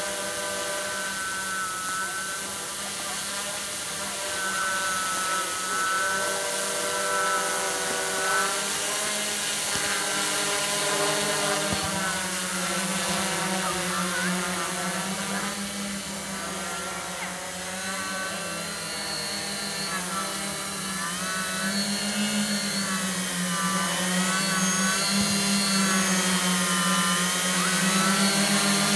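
Digitech JAF hexacopter's six brushless motors and 11-inch Graupner propellers whirring in flight, a steady hum whose pitch keeps wavering up and down as the motors speed up and slow down. It gets louder over the last several seconds as the hexacopter comes in to hover close by.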